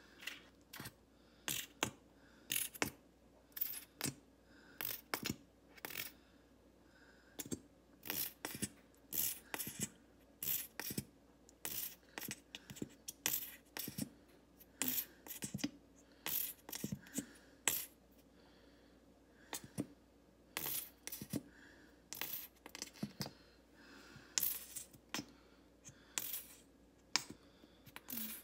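Metal spoons clinking and scraping, short sharp clinks at irregular intervals, about one or two a second, as honey is spooned out and scraped off a spoon.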